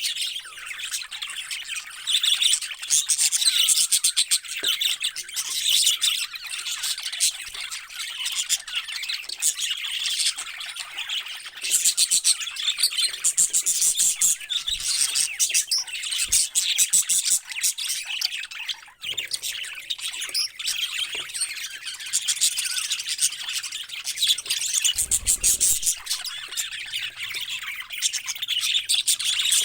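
A flock of parrots chirping and squawking together in a continuous, busy chatter of rapid high calls.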